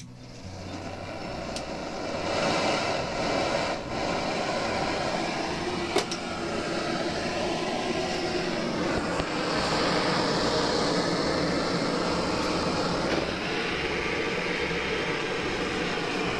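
Handheld gas cartridge blowtorch burning with a steady rushing hiss that swells over the first couple of seconds as it is lit, heating a crimped cable lug for soldering. A single sharp click about six seconds in.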